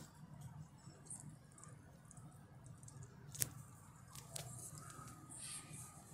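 Quiet room with a low steady hum and a few faint clicks and rustles of handling, with one sharper click about three and a half seconds in.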